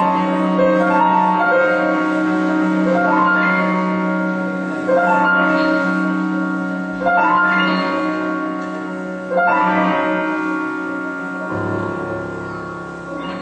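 Jazz piano playing slow, sustained chords, a new chord struck about every two seconds and left to ring and fade. A low bass note comes in near the end.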